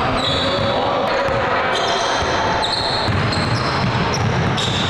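Basketball court noise: a ball bouncing on a hardwood floor among indistinct voices, echoing in a large gym.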